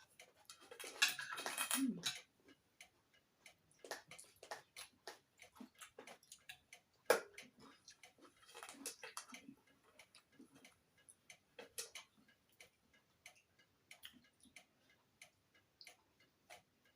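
Eating sounds at a meal: scattered small, irregular clicks and taps of chewing and utensils, with two brief rustling patches, one about a second in and one around the middle.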